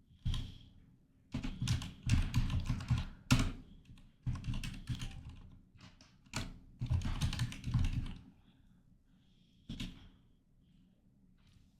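Typing on a computer keyboard: several bursts of rapid keystrokes with short pauses between them.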